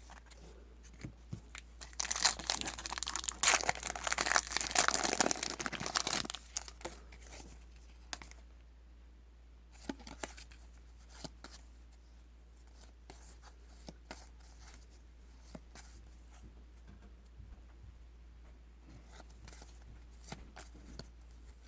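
Trading card pack wrapper being torn open and crinkled for about four seconds, then scattered faint clicks and rustles as the cards are handled.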